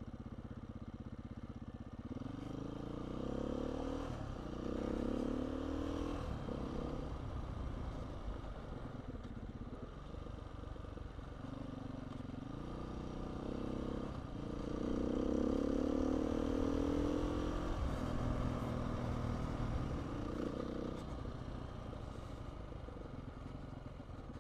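Beta 500 RR-S dual-sport motorcycle's single-cylinder four-stroke engine under way, pulling up through the gears in rising steps twice, with steadier cruising between. The second pull, about two thirds of the way in, is the loudest.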